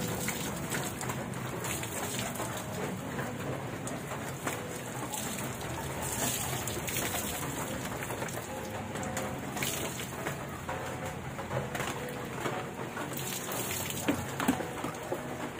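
Dishes being washed by hand: water splashing and running steadily, with scrubbing and scattered small clinks and knocks.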